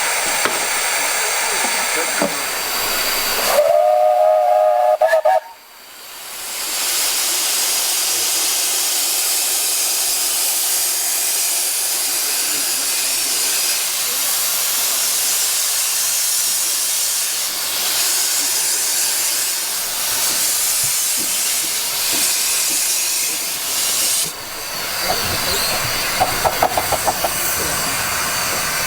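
Steam locomotive whistle on a 15-inch-gauge miniature railway, one chord-like blast of about two seconds a few seconds in, then the steady rushing noise of the train running, with a quick run of clicks near the end.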